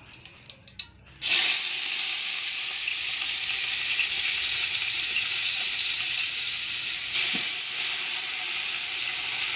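Loud, steady sizzling hiss from a large aluminium cooking pot on a clay stove. It starts suddenly about a second in, and there is a brief louder swell about seven seconds in.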